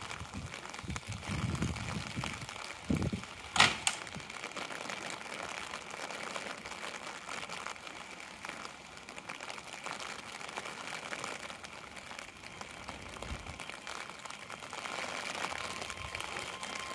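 Keio 7000 series electric train pulling out of a station: a low steady running noise with one sharp knock about three and a half seconds in, the noise growing a little louder near the end as the train gets under way.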